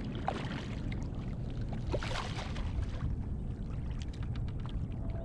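Water splashing and sloshing around a fishing kayak as a hooked fish is fought, over a steady low rumble. A brighter splash comes about two seconds in, and a scatter of small clicks follows.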